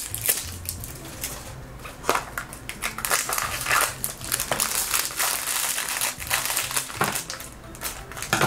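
Crinkly plastic and foil wrapping from a toy blind capsule crackling and crumpling in the hands as it is unwrapped, in irregular bursts that are busiest around the middle.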